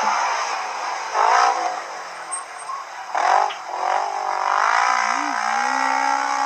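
Off-road vehicle engine revving in two short bursts, about a second in and about three seconds in, each rising and falling in pitch, then holding a steadier pitch through the second half.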